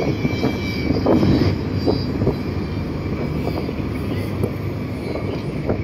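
Steady low engine rumble of a high-speed passenger ferry waiting to leave port.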